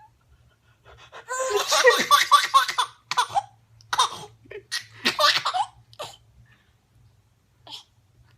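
An 8-month-old baby laughing hysterically in fits: a long fit of about two seconds starting a second in, then several shorter bursts of laughter.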